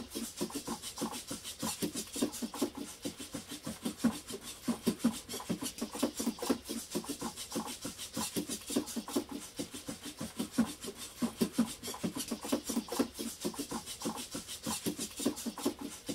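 Small 3D-printed quadruped robot dog walking on a tabletop: its hobby leg servos whirring in quick repeated strokes while its feet tap and scuff on the table in a steady, rapid rhythm.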